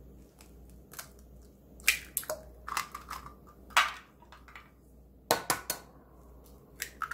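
Eggs being cracked into a glass measuring cup: a series of sharp cracks and crunches of eggshell, coming in several separate clusters.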